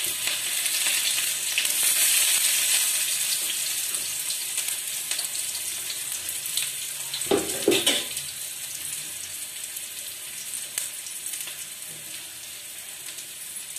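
Chopped onions frying in hot ghee in a kadhai, a steady sizzle that slowly dies down as they cook. A brief louder sound comes about seven seconds in.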